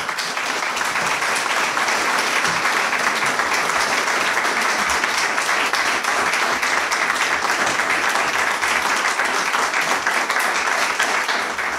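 An audience applauding steadily after a poetry reading, then fading out.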